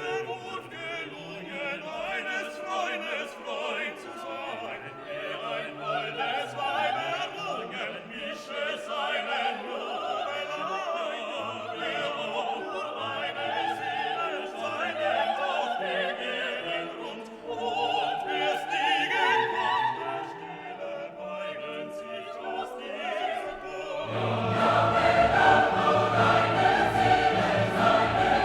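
Background music: classical choral or operatic singing with orchestra, growing fuller and louder near the end.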